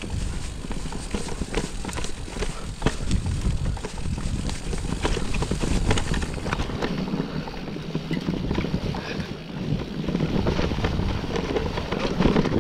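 Electric mountain bike riding down a dry dirt forest trail: tyres rolling over dirt and twigs, with frequent clicks and rattles from the bike, and wind rumble on the microphone.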